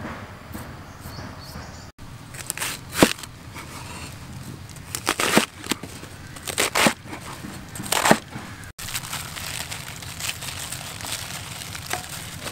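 A cleaver chops through a napa cabbage onto a wooden chopping board in a few sharp, crunching strokes. From about nine seconds in, the crisp cabbage leaves are torn apart by hand with a steady crinkling and crackling.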